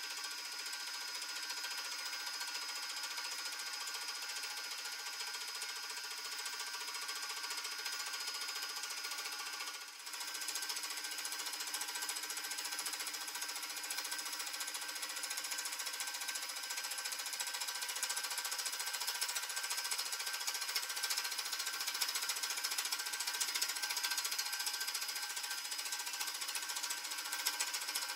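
Milling machine running a slitting saw through a steel lathe banjo, cutting its clamping slot: a steady mechanical whir with a dense, high ringing from the saw teeth in the steel. It breaks briefly about ten seconds in and runs slightly louder after.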